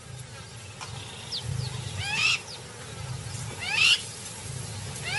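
Lion growling at night: a low, pulsing rumble, broken by three short, sharp higher-pitched cries about two, four and five seconds in.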